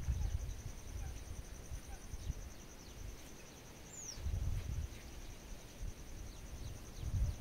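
Lakeshore ambience: gusts of wind rumbling on the microphone, over a steady, high, pulsing insect trill, with a few short falling bird chirps.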